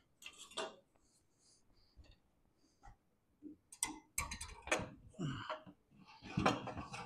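Clanks, knocks and scrapes from a lawn mower deck being handled and tipped on its side on a metal workbench. A few faint clicks come first, then a cluster of sharper knocks from about three and a half seconds in.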